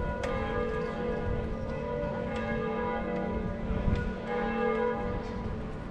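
Church bells ringing, with new strokes about every two seconds and each note ringing on.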